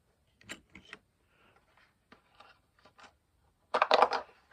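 Small plastic camera mounting parts and packaging being handled: a few light clicks and soft rustles, then a louder crackling rustle near the end.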